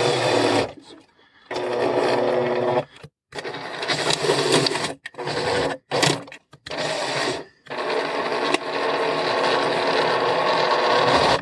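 Cordless drill-driver running in a string of short bursts, the last and longest about four seconds and stopping abruptly, as it drives screws through a 3D-printed mount into plywood without pre-drilled holes.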